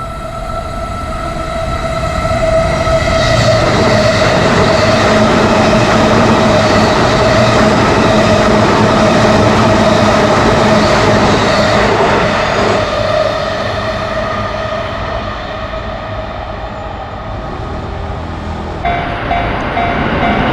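Railway crossing alarm sounding steadily while a train passes: the rumble and wheel noise swell about three seconds in and ease off after about twelve seconds. Near the end it cuts to a different crossing bell ringing in quick pulses.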